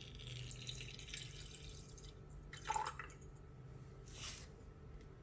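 Alcohol poured from a glass measuring cylinder into a glass beaker: a faint thin trickle for about two seconds, then a few separate drips as the cylinder empties.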